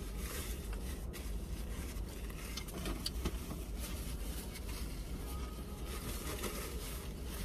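Steady low rumble of a car heard from inside the cabin, with a few faint small clicks and rustles.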